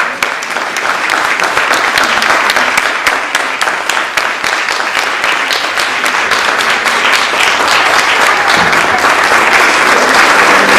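Congregation applauding in a church sanctuary: dense, steady clapping that grows gradually louder toward the end.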